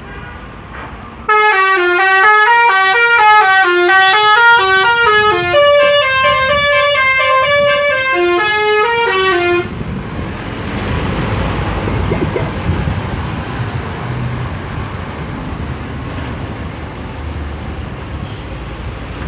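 Bus 'telolet' musical air horn playing a tune of quickly changing notes for about eight seconds and cutting off sharply, followed by bus engine and road noise.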